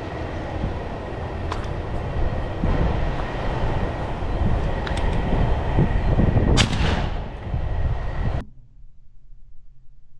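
A single shotgun shot about six and a half seconds in, ringing out briefly over a steady rumbling background. The sound cuts off abruptly soon after.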